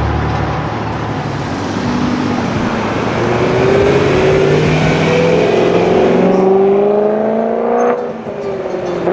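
Sports car engine accelerating on a city street, its revs climbing steadily for about five seconds. About eight seconds in the revs drop sharply, then start climbing again.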